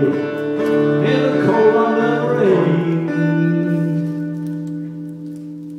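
Acoustic guitar playing the closing bars of a folk song: strummed for about two and a half seconds, then a final chord rings out and slowly fades.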